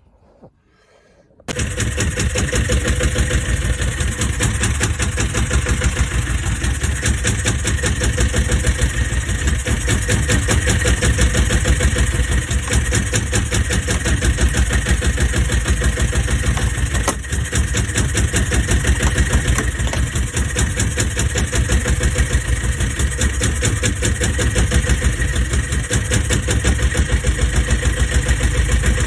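Bukh DV8 single-cylinder marine diesel running steadily with a rapid, even knock of its firing strokes. It comes in abruptly after near silence, about a second and a half in.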